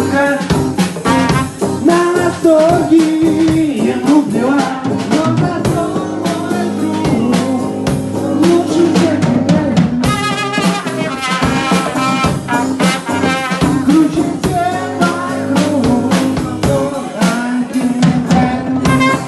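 Live improvised band music: a drum kit, electric guitar and trumpet playing together, with a voice singing. The music changes abruptly about halfway through.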